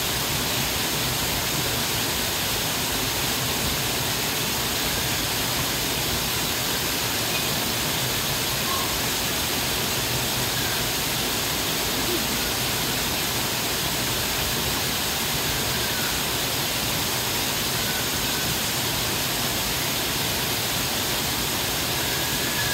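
Steady, even rushing of falling water.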